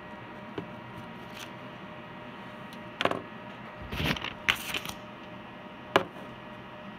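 Several short rustles and knocks over a steady low hum of room tone: a small click within the first second, bunches of rustling and knocks about three to five seconds in, and one sharp knock near six seconds.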